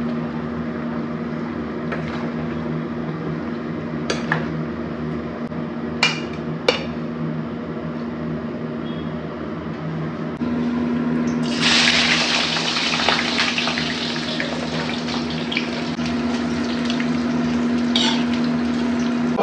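Stovetop cooking: a steady hum with a few sharp metal clinks of a spoon against the kadai. About two-thirds of the way through, a loud crackling sizzle of potato strips frying in hot oil begins and carries on.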